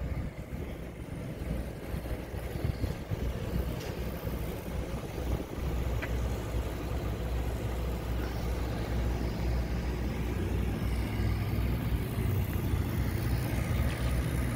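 A motor vehicle running with a steady low rumble amid city street noise.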